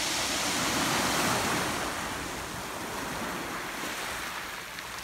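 Small waves breaking and washing up over a pebble beach, the surf loudest about a second in and easing off as the water draws back.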